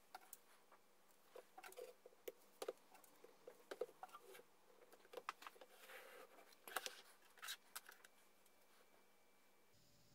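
Plastic spring clamps being opened and set onto a wooden wheel glue-up: faint irregular clicks and clatter of plastic and wood being handled, which stop about eight seconds in.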